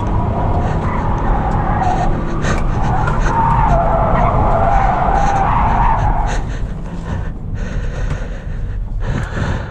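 Tyres of a Chevrolet Cruze diesel squealing as it is driven hard through corners, heard from inside the cabin over the engine and road noise. The squeal wavers in pitch and fades about six seconds in, leaving the engine and road rumble.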